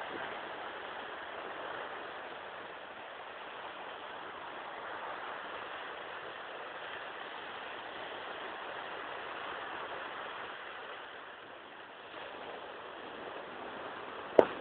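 Steady wash of sea surf on a sandy beach, heard as an even hiss without distinct breakers, with one sharp knock right at the end.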